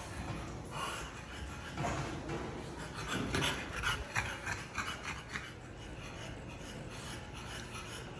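French bulldogs sniffing and panting close by: a run of short, irregular noisy breaths and sniffs, thickest a few seconds in, then dying down.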